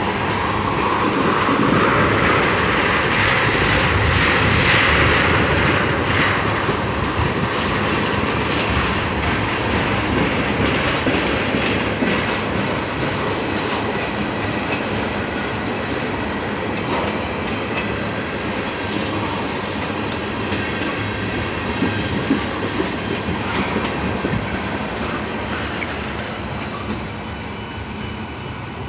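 Freight train's tank cars and a covered hopper car rolling past close by: the steady rumble and clatter of steel wheels on the rails, slowly growing quieter toward the end.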